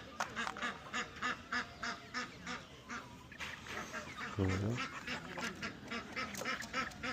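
Ducks or geese calling over and over in quick, overlapping calls, several a second. A single short, low animal call cuts in about four and a half seconds in.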